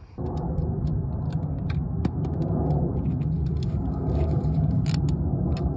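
A steady low rumble, with scattered light metallic clicks of a spanner working the 8 mm cable nut on a diesel glow plug.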